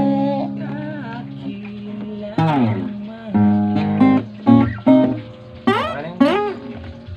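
Acoustic guitar being played, with held chords and restruck notes and a few sliding pitches.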